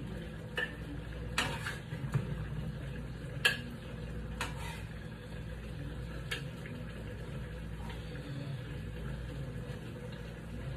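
A spatula clinking and scraping against a pot and a plate as food is served out, several sharp clinks in the first six seconds or so, the loudest about three and a half seconds in, over a steady low hum.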